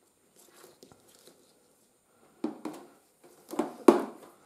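Handling noises of cables being moved about: faint rustling, then a few short clicks and knocks, the sharpest a little under four seconds in.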